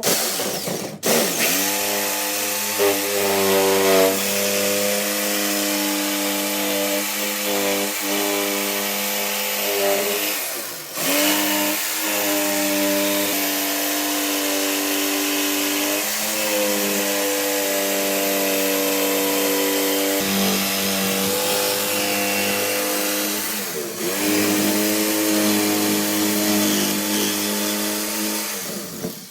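Electric power saw running and cutting through a wooden frame, a steady motor whine over the rasp of the blade, briefly dipping and picking up again a few times.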